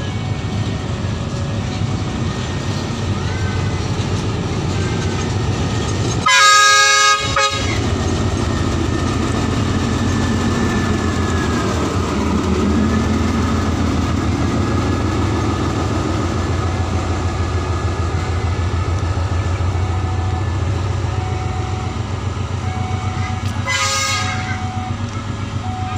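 Diesel locomotive passing close while hauling tank wagons, its engine running and the wheels rolling over the rails. About six seconds in it gives one loud blast of its air horn lasting about a second, and there is a short horn toot near the end.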